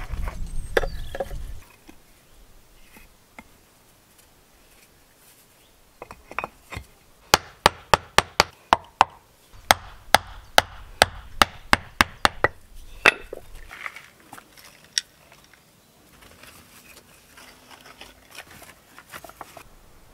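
A wooden rod knocking against flagstones as it tamps soil into the joints between them: a quick, regular run of sharp knocks, two to three a second, lasting about five seconds near the middle. A short stretch of low handling noise comes at the start.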